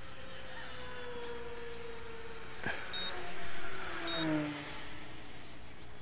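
Electric-powered RC model airplanes flying past overhead: the whine of their motors and propellers slides down in pitch as each plane goes by, several at once and loudest about three and a half seconds in. Two short high beeps sound in the middle.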